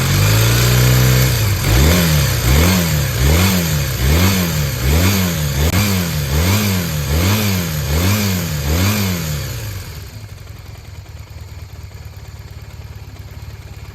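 Honda CM250T/CB250T parallel-twin motorcycle engine being revved: held at raised revs for about a second, then blipped about ten times in a quick, even rhythm, before settling to idle about ten seconds in. It runs without abnormal noise, as the seller states.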